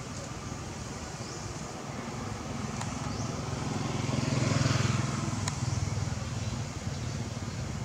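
A motor vehicle engine running and passing, its low hum growing louder to a peak about halfway through and then easing off, with a couple of faint ticks.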